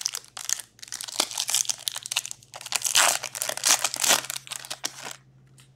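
Foil wrapper of an Upper Deck Synergy hockey card pack crinkling and tearing as it is opened by hand, in a dense run of crackles that stops about five seconds in.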